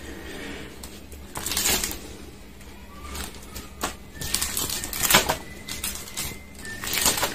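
Photo album pages with plastic photo sleeves being turned by hand, rustling and flapping in a few short bursts.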